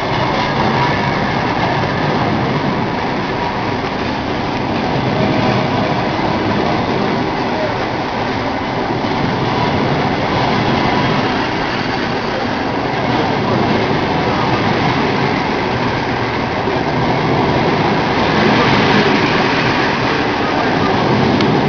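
Passenger train hauled by a ChS4t electric locomotive pulling out, its carriages rolling past with a steady rumble on the rails that swells slightly near the end.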